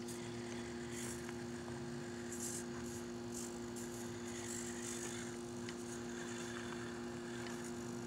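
Small electric drivetrain of an Axial AX24 RC rock crawler humming steadily at crawling speed, with short scratchy scrapes of its tyres on the rocks.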